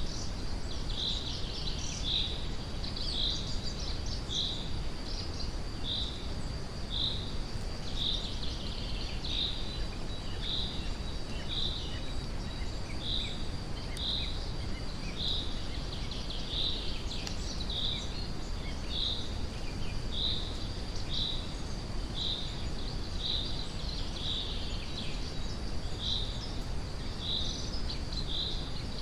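Steady brown noise, strongest in the low end, under forest birdsong. A short high chirp repeats about once a second throughout, with a few other bird calls now and then.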